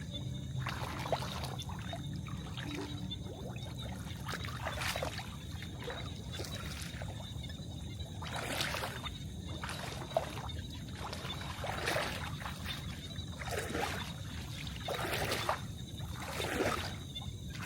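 Water splashing and trickling in irregular bursts every second or two, over a steady low rumble.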